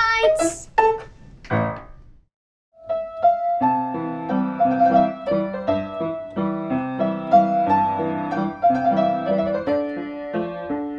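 A held sung note ends just after the start, a few fading sounds follow, and after a moment of complete silence a piano piece begins about three seconds in, playing steady chords and a melody.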